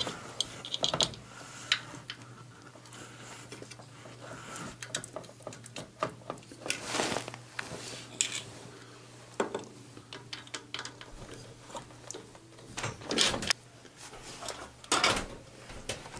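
Irregular clicks, taps and scrapes of hand-tool work on the metal parts of an oil burner, a screwdriver at its screws, with a few louder rustling swishes. A faint steady low hum runs underneath.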